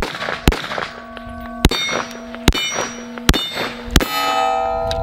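Smith & Wesson M&P 22 Magnum pistol firing six .22 WMR shots in quick succession, roughly one every half-second to second. Each shot is followed by the clear ring of a struck steel plate target. The last ring holds on longest.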